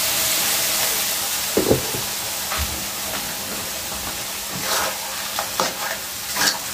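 Water poured into a hot wok of stir-fried vegetables and meatballs sizzles and hisses, strongest at first and then easing to a steady sizzle. A spatula knocks and scrapes against the wok a few times as the mix is stirred.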